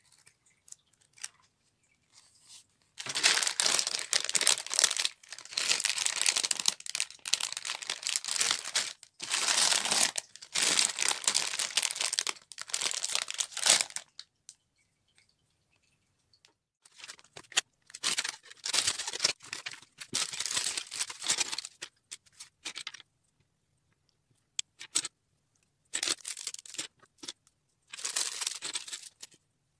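Clear plastic bags of Lego pieces crinkling and being torn open by hand, in long rustling spells with short pauses between them.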